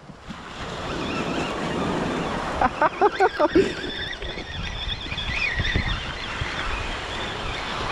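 Small waves washing onto a sandy beach, with wind buffeting the microphone. A few short, sharp sounds stand out about three seconds in.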